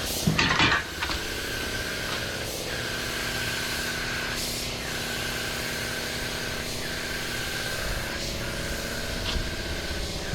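A machine running steadily, with a low hum and a constant high whine that dips briefly every second or two. A short loud hissing burst comes about half a second in.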